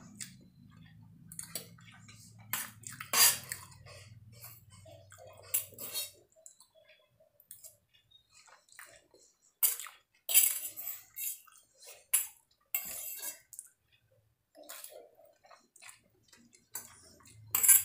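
A metal spoon clinking and scraping against a stainless steel plate, mixed with close-up chewing of fried rice, noodles and chilli chicken, in irregular short bursts.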